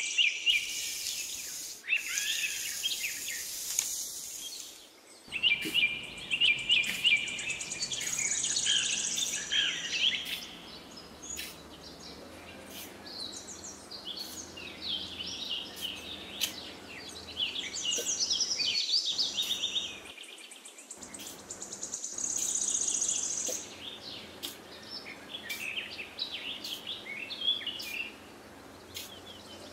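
Small birds chirping and calling in quick, overlapping twitters, with soft scraping of damp sand under a small hand trowel.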